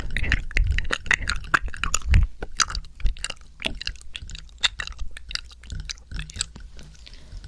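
ASMR mouth sounds made close to the microphone: wet lip smacks and tongue clicks in a quick, irregular run.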